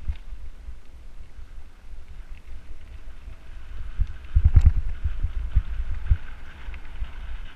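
Mountain bike riding over a gravel track: the tyres crunch steadily on the loose stones while bumps jolt the bike and its mounted camera, giving low rumbling thumps, with a run of heavier knocks about four and a half seconds in.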